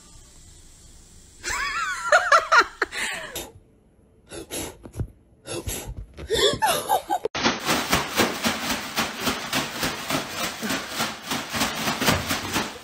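A person laughing hard in quick repeated bursts through the second half, after scattered short vocal sounds earlier on.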